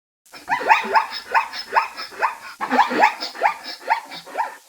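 Zebra calling: a quick run of short, rising, barking yelps, about two to three a second, with a brief break midway.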